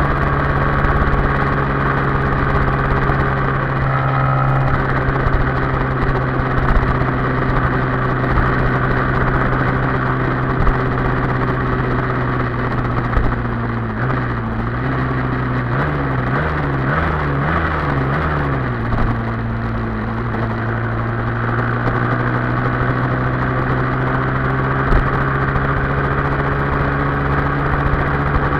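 Yamaha Y15ZR's 150 cc single-cylinder four-stroke engine running steadily at highway cruising speed, with wind rushing over the microphone. About halfway through, the engine note wavers up and down several times, then settles again.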